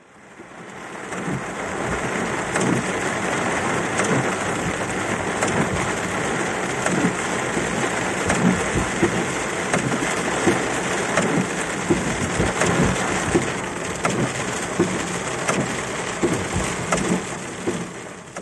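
Hail and heavy rain hitting a car's roof and windshield, heard from inside the car: a dense hiss full of sharp ticks from individual stones striking. It fades in over the first two seconds.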